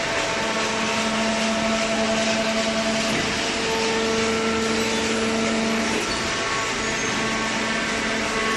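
Hydraulic cardboard baler running: a steady mechanical drone from its motor and pump, with a humming tone that eases about six seconds in.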